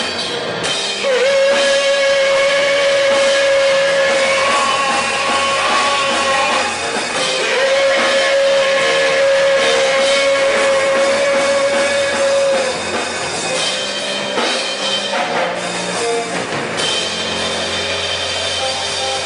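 Rock band playing a song with drum kit and guitars, with a voice singing; a long note is held twice, each for about five seconds.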